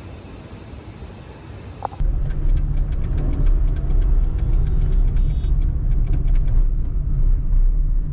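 Car on the road: a steady low rumble of engine and tyres, which starts suddenly about two seconds in after a quieter hiss. A run of rapid clicks and rattles comes through the middle.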